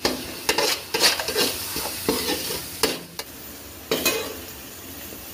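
A metal spatula stirring spiced onion-tomato masala with green chillies as it sizzles in a metal cooking pot, with repeated scrapes and clanks of metal on metal over a steady frying hiss.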